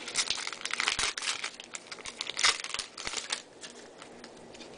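Foil wrapper of a Topps baseball card pack crinkling and tearing as it is ripped open by hand. The crackling dies down after about three and a half seconds.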